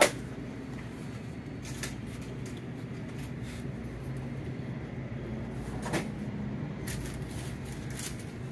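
Checkout-counter room sound in a store: a steady low hum with scattered clicks and knocks from handling at the register. The loudest is a sharp click right at the start; smaller ones follow about two seconds in, around six seconds in, and near the end.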